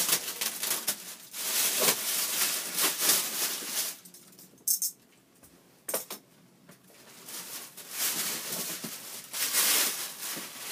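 Cardboard box being cut and pulled open: stretches of scraping and tearing cardboard, with a quiet spell in the middle broken by a couple of short clicks.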